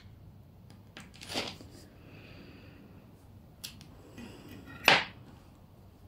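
Handling sounds at a plate of crispy fried glass noodles. A soft rustle comes about a second and a half in, then a small click, then a louder, brief rustle about five seconds in as a fork goes into the noodles.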